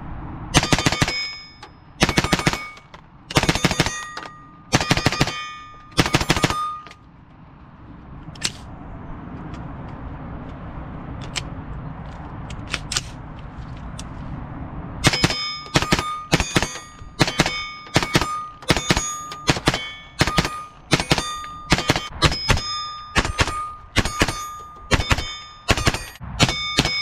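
A .22 WMR (22 Magnum) rimfire AR-15 rifle firing, with the shots often followed by the ring of steel plate targets being hit. Several quick strings of shots come in the first six seconds, then a pause of about eight seconds with only a few faint clicks, then steady fire at about two shots a second.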